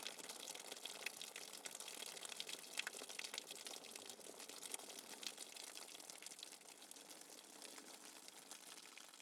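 Faint light rain: the patter of separate drops, many small ticks over a soft hiss.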